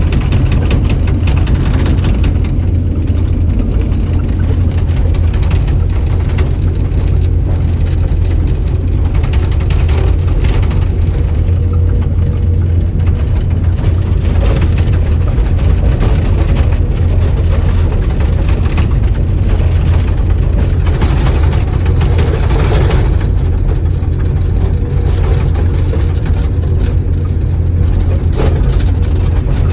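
Heavy diesel earthmoving machinery running steadily under load, with a deep engine rumble that swells a few times and some clanking.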